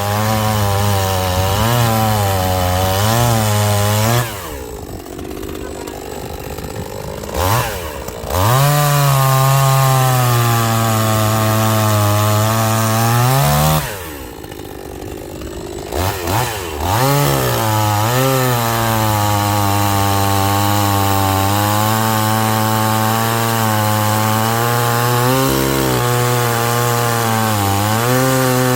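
Two-stroke chainsaw running at full throttle, cutting firewood logs with a freshly sharpened chain. Twice it drops back to idle for a few seconds, about four and fourteen seconds in, then revs up again.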